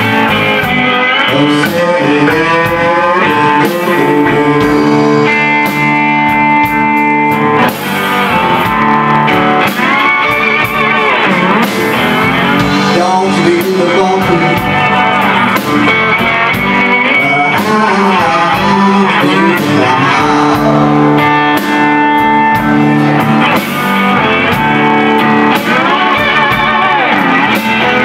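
Live blues band playing loud and steady: electric guitars, electric bass and drums, with slide-guitar lines gliding in pitch.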